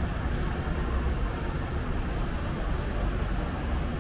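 Steady low rumble of city road traffic heard from high above: trucks and cars on a jammed elevated expressway, and motorbikes and cars passing on the road below.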